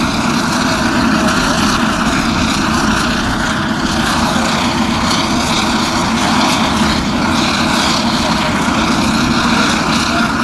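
Twin GE H80 turboprop engines of a LET L410NG running steadily as the aircraft taxis past, its propellers turning. The sound is a loud, even engine and propeller noise.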